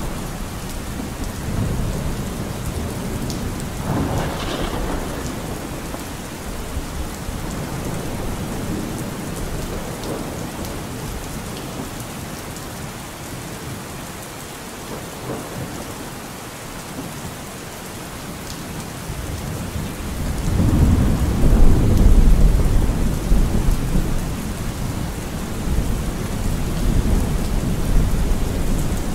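Steady rain with rolling thunder; a long low rumble of thunder swells about two-thirds of the way through.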